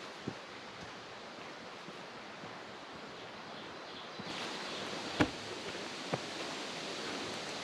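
Steady outdoor hiss, such as wind or moving air, that grows brighter about four seconds in. A few scattered thumps or knocks sound over it, the loudest about five seconds in.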